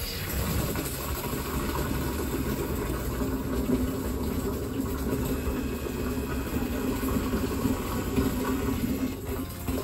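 Water streaming from a PVC pipe onto the aluminium mesh screen of a rain-barrel lid and splashing into the barrel: a steady rush, with the motorized ball valve open to refill the barrel. A steady low tone joins about three seconds in.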